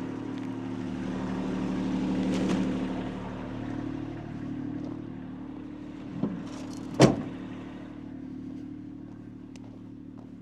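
An engine running steadily, swelling briefly about two seconds in, with a sharp knock about seven seconds in.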